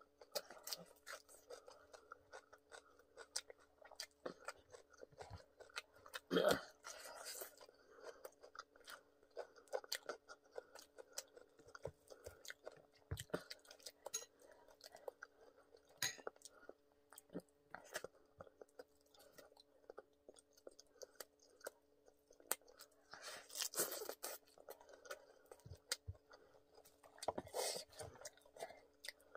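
Close-miked chewing and crunching of fried crispy chicken and pork: many small mouth clicks, with a few louder bursts of crunching about six seconds in and again near the end. A faint steady hum runs beneath.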